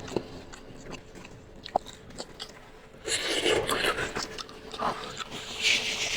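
Close-up eating sounds of instant noodles: faint wet mouth clicks at first, then louder hissing chewing and slurping noises from about three seconds in.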